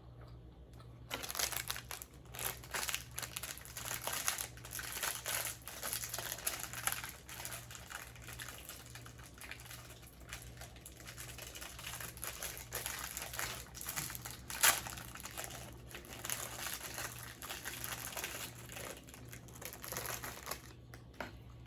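Close crinkling and crackling with many small clicks, starting about a second in, with one sharper click about two-thirds of the way through. A steady low hum runs underneath.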